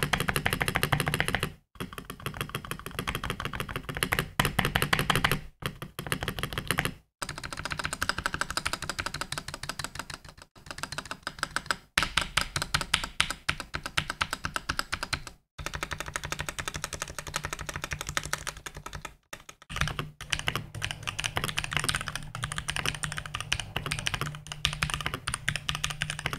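Designed by GG Berserker TKL mechanical keyboard being typed on: rapid key clacks, first from the spacebar and its screw-in stabilizer, then the large keys around Enter and Shift, then fast two-handed typing. A few short silent breaks fall between takes.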